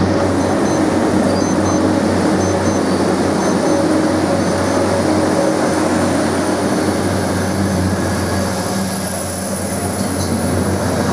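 Arriva Trains Wales Class 175 diesel multiple unit running in alongside the platform, its carriages passing close by with a steady rumble over a constant low engine hum.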